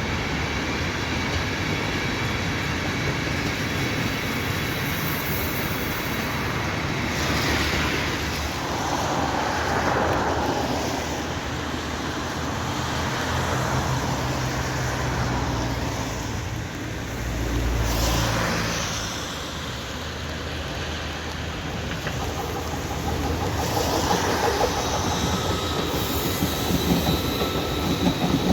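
A train running past on the tracks: continuous noise of wheels on rails, with several louder swells along the way and thin high tones near the end.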